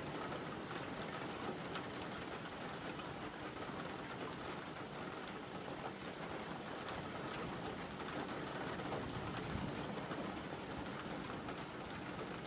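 Heavy rain falling steadily during a thunderstorm, a constant hiss with scattered drops pattering on nearby surfaces.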